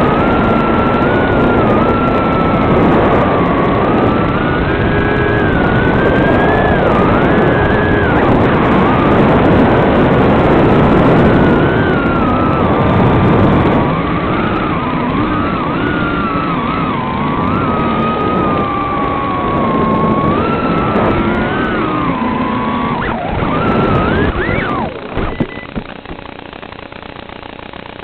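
Brushless motors and propellers of a Realacc Swallow 130 FPV racing quadcopter whining, heard through its onboard DVR's microphone, the pitch wavering up and down with the throttle. Near the end the pitch shoots up sharply, a few knocks follow as the quad comes down in the grass, and the motor sound gives way to a much quieter steady hum.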